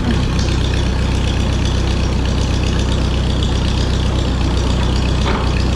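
Minneapolis-Moline ZB tractor engine running steadily at a low, even speed.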